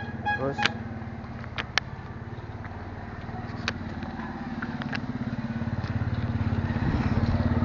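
Yamaha Mio scooter's single-cylinder four-stroke engine idling with an even, fast pulse, getting louder over the last two seconds. A few sharp clicks sound in the first four seconds.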